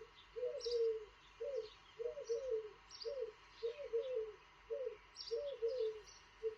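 Wood pigeon cooing: a steady series of short, low coos, some in pairs, about one to two a second. Small birds chirp faintly in the background.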